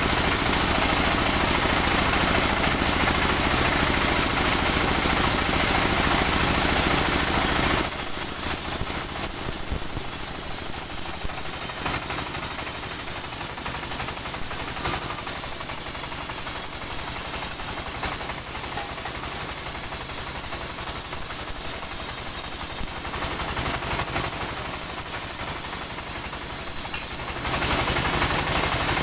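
Portable band sawmill running steadily while sawing a saman (rain tree) log: engine and band saw blade, with a constant high hiss. The sound drops somewhat about eight seconds in and picks up again near the end.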